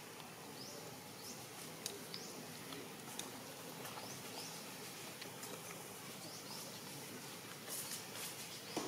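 Faint, short high chirps sweeping upward, repeating about once a second, with a few sharp clicks near the end.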